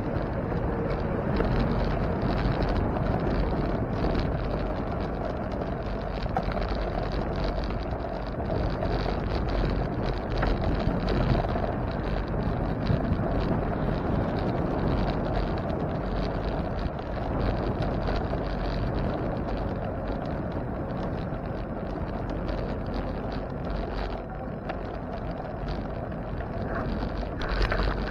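Steady rush of wind on the microphone, with the tyre and road noise of a bicycle being ridden.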